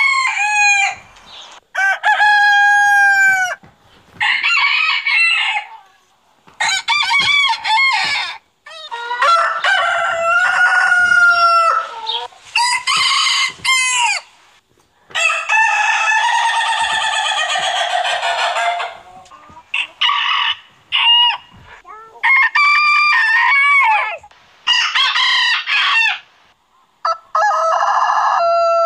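Roosters crowing, about eleven crows one after another with short gaps, each lasting one to four seconds; the crows vary in pitch and length, coming from several different roosters in turn.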